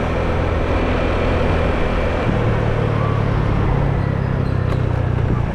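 Motor scooter's engine running steadily under way, heard from the rider's seat, over road and wind noise. The engine note changes about two seconds in.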